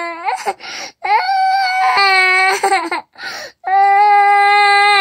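A two-year-old toddler crying in long wails, broken by gasping breaths about half a second in and again about three seconds in: a bedtime tantrum, crying so as not to go to sleep.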